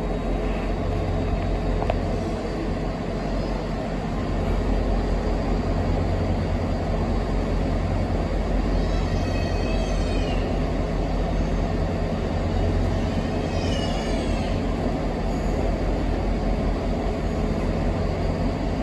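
Diesel engines of a Class 43 HST power car running steadily with a continuous low drone.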